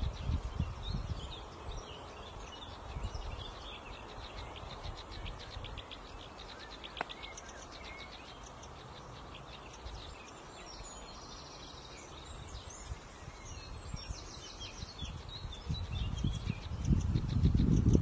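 Sedge warbler singing a long, rapid, high-pitched chattering song of repeated notes and trills. A low rumbling noise is loud at the start and swells again near the end.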